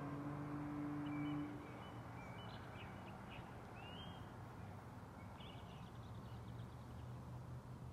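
Sparse short bird chirps over a low steady hum; a low held tone, louder than the rest, stops about a second and a half in.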